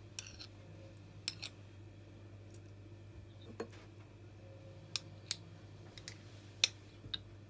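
Scattered light clicks and taps of a spoon against glass as minced garlic is scooped from a glass jar into a glass cup of yogurt, about eight in all, irregularly spaced, over a faint steady hum.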